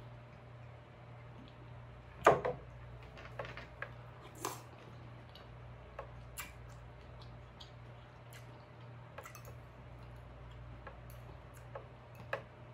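A glass hot-sauce bottle set down on the table with one sharp knock about two seconds in, followed by scattered light clicks and clinks of a metal utensil against a glass bowl of shrimp ceviche. A faint steady hum runs underneath.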